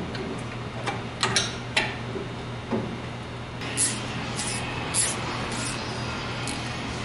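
Hand tools and metal brake parts clicking and clinking at a truck's front disc-brake hub, a scatter of short sharp taps with a brighter run of clinks about halfway through, over a steady low hum.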